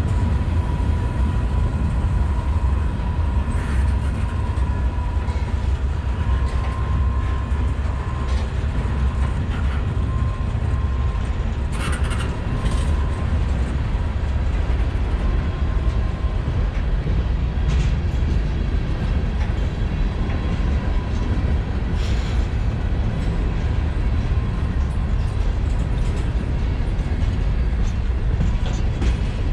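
Freight cars of a slow-moving mixed freight train rolling past, a steady low rumble of wheels on rail with an occasional sharp clack and a faint, thin whine that comes and goes.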